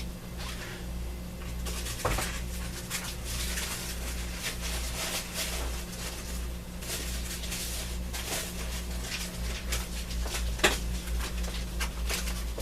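Paper sheets rustling and crackling as they are sorted and handled, with a few light knocks, over a steady low hum.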